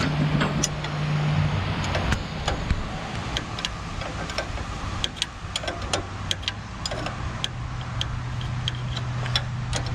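Scattered light metallic clicks and taps of hand tools working on the skidder winch's brake adjustment nuts, over a low steady hum.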